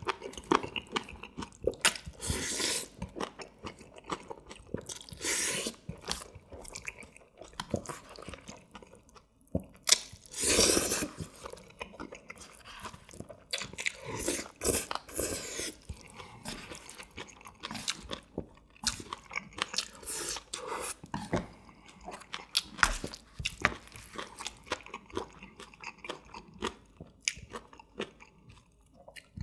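Close-miked eating of ganjjajang black-bean-sauce noodles: noodles slurped from chopsticks and chewed, with irregular wet chewing and biting noises and several louder bursts, the loudest about ten seconds in.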